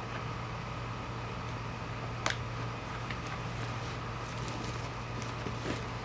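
A steady low hum, with faint rustling and a single sharp click a little over two seconds in, as the folding camping cot is handled and packed.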